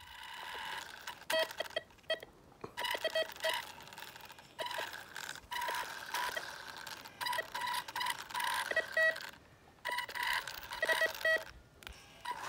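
Homemade metal detector's buzzer beeping in short, irregular bursts at a few different pitches, with clicks between them: it is going off as it passes over metal.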